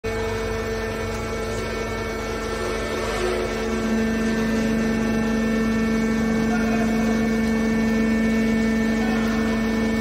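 Hydraulic metal baler's power unit running: a steady electric-motor and hydraulic-pump hum with a tonal whine, growing a little louder about four seconds in.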